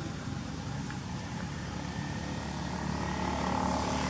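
A motor engine running steadily, growing louder about three seconds in.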